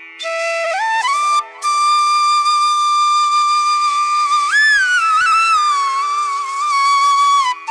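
Background music: a single melody line rises in short steps, breaks off briefly, then holds one long note that bends up and down in pitch before stopping near the end.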